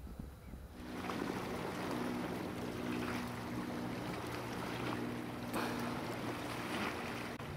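A steady motor hum over a rushing wash of noise, both starting about a second in and holding steady.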